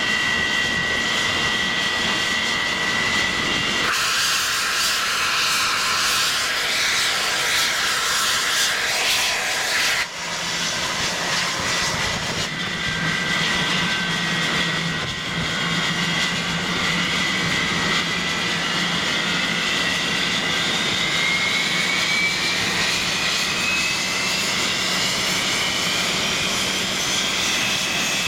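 English Electric Lightning's Rolls-Royce Avon turbojets running on the ground with a loud, steady high whine. The sound changes abruptly twice early on, and in the second half a whine rises slowly in pitch as an engine spools up.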